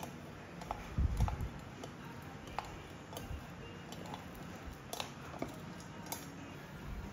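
Metal kitchen tongs clicking and tapping against a mini waffle maker's plates in scattered light clicks, with a dull knock about a second in.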